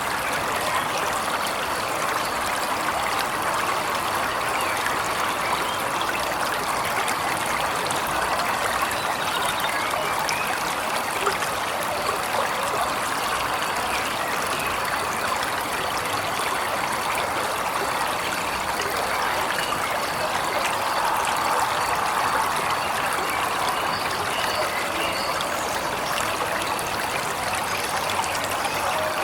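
Waterfall water flowing steadily, an even rush of running water.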